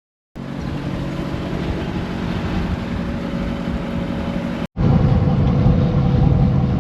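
Skid steer's engine running steadily after its frame repair. It starts abruptly, drops out for a moment just before five seconds in, and comes back louder.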